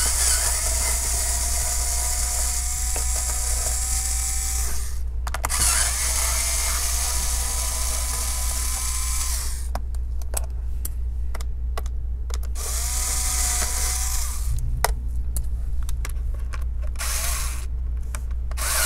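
Electric precision screwdriver whirring in several runs of a few seconds with short pauses between them, backing small Phillips screws out of a laptop's bottom case; the motor's whine shifts slightly in pitch as it runs.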